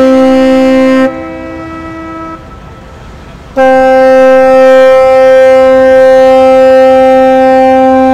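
Ship's horn sounding long blasts: one cuts off about a second in, leaving a fainter second horn tone that fades out a little later, and after a short lull a loud steady blast starts again and holds through the rest.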